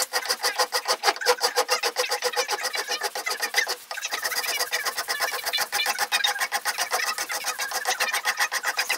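A metal hand file rasping back and forth along a small knife's steel blade clamped in a vise: a quick, chattering scrape with a faint metallic ring, pausing briefly just under four seconds in.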